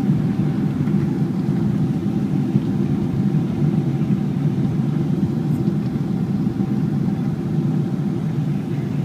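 Steady cabin noise inside a Boeing 777-200 on final approach, heard from a window seat over the wing: a deep, even drone of engines and airflow with a faint steady tone above it.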